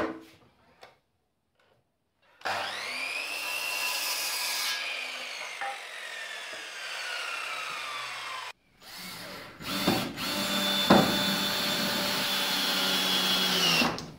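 A power cutting tool cutting a groove into a metal tube that will slot over a mower muffler's seams. It spins up and cuts, then winds down slowly over a few seconds. After a short break it runs steadily again for about five seconds.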